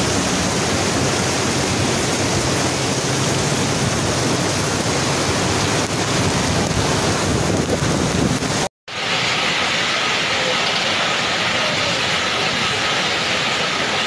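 Heavy rain pouring in strong wind: a steady rushing noise. About two-thirds of the way through it cuts out for an instant, then resumes with a brighter hiss.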